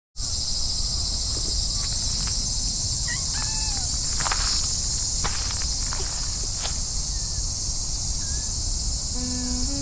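Steady, loud, high-pitched drone of a summer insect chorus, with a few soft footsteps on grass and dirt around the middle and one brief call about three seconds in. A rising run of musical notes begins near the end.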